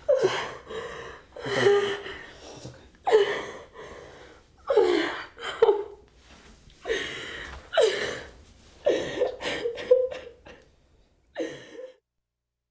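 A woman sobbing hard: a string of wailing cries, each falling in pitch, with gasping breaths between them. The sobbing stops abruptly near the end.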